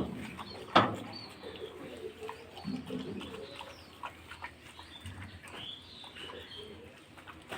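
Faint bird calls: pigeons cooing low and small birds chirping higher up, with a sharp click just under a second in and a few soft ticks.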